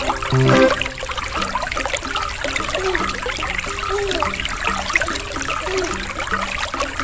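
Water trickling and bubbling in an aquarium tank.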